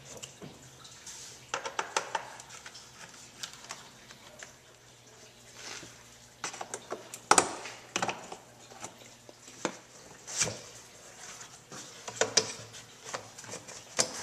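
Irregular clicks, knocks and scrapes of plastic and metal as a screwdriver loosens the hose clamp on a truck's plastic air intake duct and the duct is worked loose by hand, with the sharpest knock about seven seconds in.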